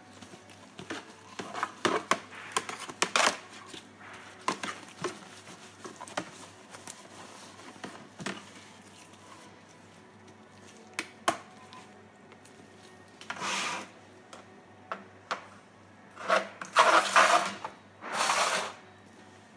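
Handling noise as a clear plastic lens sheet is fitted over the LED board of a light bar: scattered light clicks and taps, then a few short scraping rustles near the end.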